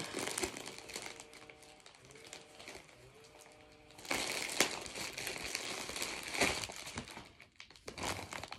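Plastic packaging crinkling as it is handled, in bursts: some at the start, a quieter stretch, then louder crinkling from about four seconds in and again near the end.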